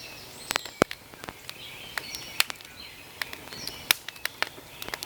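Birds chirping in short calls, broken by sharp, irregular clicks or snaps several times a second that are louder than the birdsong.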